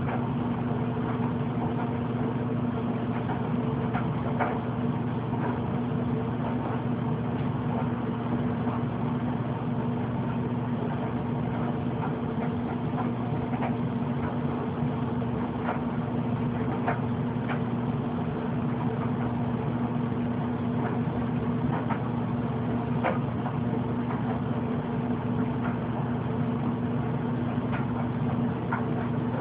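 Steady low hum of a running machine or appliance, unchanging throughout, with a few faint ticks here and there.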